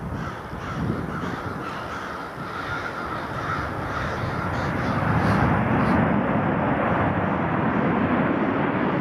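Jet engines of a four-engine Airbus A340 running on the runway, the roar growing louder from about halfway through. Birds call repeatedly over it in the first half.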